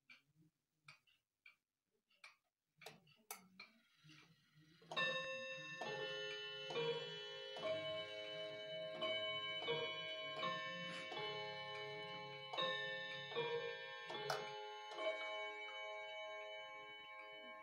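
Weight-driven wall clock ticking, then about five seconds in its chime begins: a melody of struck chime notes, roughly one a second, each ringing on over the last, fading after the final note. The minute hand stands at the quarter to the hour, so this is the quarter-hour chime.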